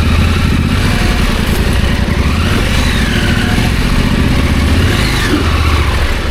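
Motorcycle engine running at low speed, its pitch rising and falling a couple of times as the throttle is worked.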